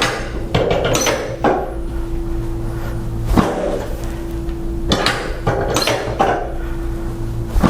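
Scattered knocks and rustling as a patient is repositioned on a chiropractic treatment table, with one heavier thump about halfway through, over a steady low hum.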